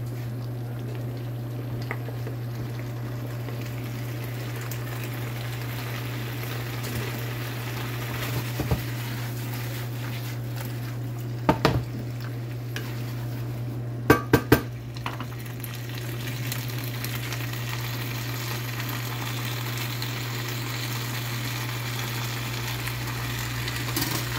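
Tomato meat sauce sizzling in a skillet while cooked rigatoni is added and stirred in, over a steady low hum. The sizzle grows louder partway through, and there are sharp knocks against the pan around the middle, three of them in quick succession.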